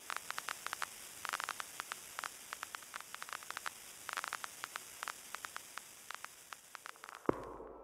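Crackling static hiss with many irregular sharp clicks, like a record's surface noise. Near the end, one sharp hit rings on in a few held tones.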